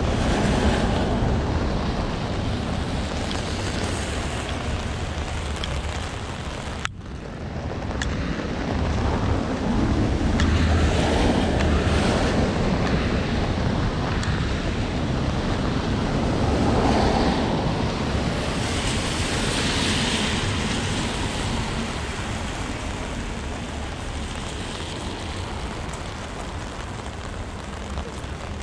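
Strong nor'easter wind gusts and rain buffeting a GoPro's microphone: a dense rushing noise that swells and eases with each gust. About seven seconds in it briefly drops out.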